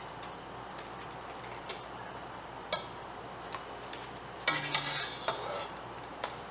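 A metal utensil clinking and scraping against a stainless steel pot, with scattered light taps and a cluster of louder ringing clanks about two-thirds of the way through, over a steady low hiss.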